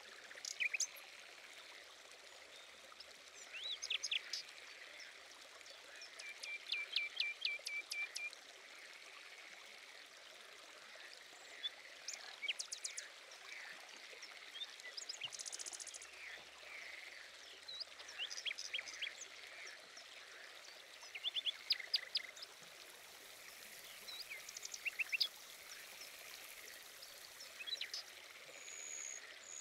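Small birds chirping and trilling in short scattered bursts of quick notes, over a steady quiet hiss like trickling water.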